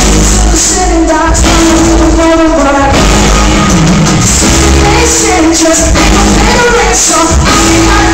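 Live band music with a lead singer, heard loud from the audience in a concert hall through a phone's microphone. Wavering sung lines with vibrato ride over heavy, steady bass.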